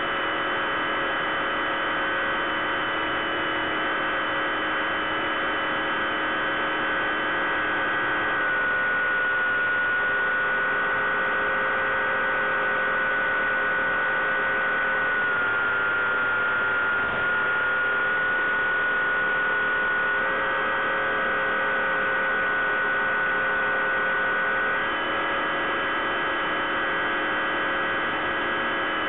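Electric motor and propeller of a Bixler 3 RC plane humming steadily in flight, picked up by the onboard microphone. The pitch drops slightly about a third of the way in and again midway, then rises back in two steps in the second half.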